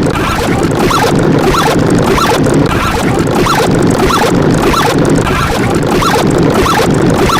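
A loud, dense jumble of many sound effects layered over one another, full of short squeaky chirps over a thick low clatter.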